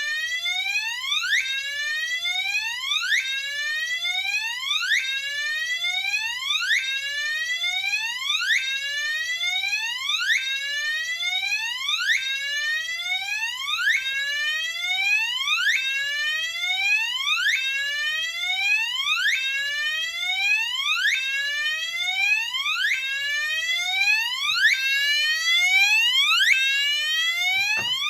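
Gentex Commander 3 fire alarm horn sounding its whoop tone: a rising electronic sweep that repeats over and over, about every 1.7 seconds.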